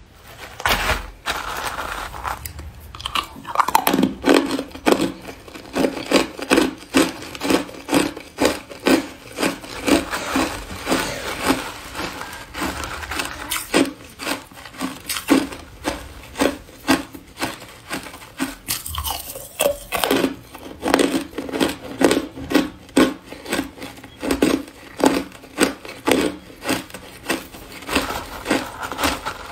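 Hard clear ice being bitten and chewed close to the microphone: a steady run of sharp, crisp crunches, one after another.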